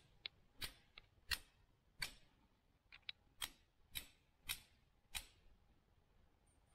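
About a dozen faint, sharp clicks at uneven intervals over roughly five seconds, then they stop.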